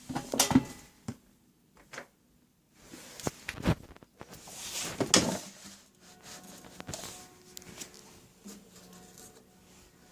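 Handling sounds from a Miele W941 front-loading washing machine being set up: several sharp knocks and clicks, a sliding swish about five seconds in, then a faint steady hum from about six seconds in.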